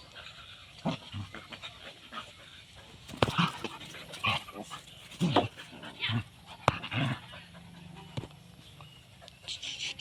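Dog at play, making a series of short vocal sounds, then panting quickly near the end.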